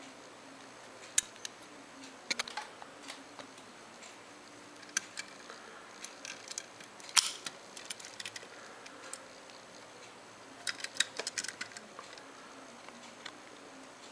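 Die-cast toy cars handled on a hard table top: scattered sharp clicks and taps of metal and fingers against the surface. The loudest tap comes about seven seconds in, and a quick run of clicks follows near eleven seconds.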